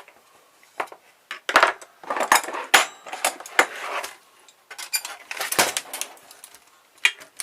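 Metal clinking and scraping in irregular bursts as a car stereo's metal casing is pried apart with a small crowbar, its tabs being worked loose.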